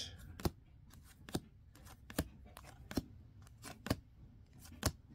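2023-24 Panini NBA Hoops basketball cards being flipped through by hand, a short sharp snap about once a second as each card is slid off the stack, with faint rustling of card stock between.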